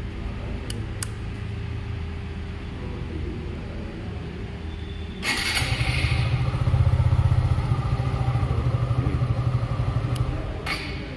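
Suzuki Gixxer 150's single-cylinder engine running. About five seconds in it grows much louder with a quick, even pulse, then eases off near the end.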